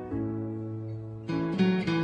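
Instrumental background music, likely acoustic guitar: held chords, then a louder run of quick strummed chords from just past halfway.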